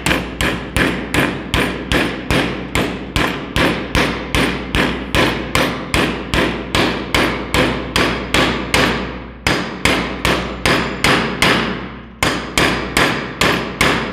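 Small hammer striking metal in steady, quick taps, about three a second, driving a new 6201 ball bearing evenly into its seat in a ceiling fan's end cover. There are short breaks about nine and twelve seconds in.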